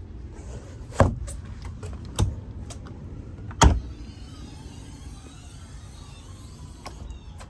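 Fibreglass hatch lids on a jet boat being handled: a few sharp clunks and knocks, the loudest about a second in and again about three and a half seconds in, with lighter clicks between them.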